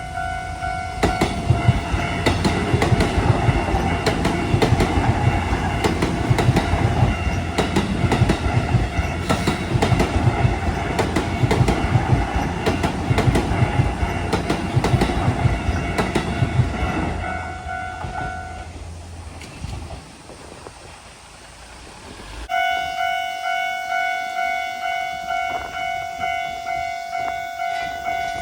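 Japanese level-crossing warning bell ringing in quick, steady pulses, about two a second, while a train runs over the crossing, its wheels clacking over the rail joints. After about seventeen seconds the train has gone by and the bell stops; a few seconds later a crossing bell starts ringing again.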